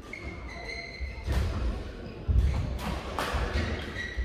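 Badminton rally in a large hall: several sharp racket hits on the shuttlecock, the loudest a little past two seconds in, over thudding footsteps on the court floor. Short high squeaks of court shoes come near the start and again at the end.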